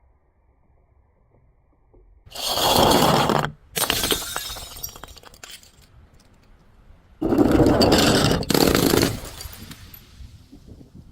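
Glass containers shattering, twice: a loud crash about two seconds in and another about seven seconds in, each with a second burst close behind it and a slowly fading tail as the pieces settle.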